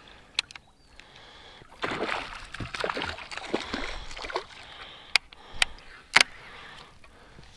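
A hooked perch splashing and thrashing at the water's surface as it is reeled in to the boat. Several sharp clicks come near the end.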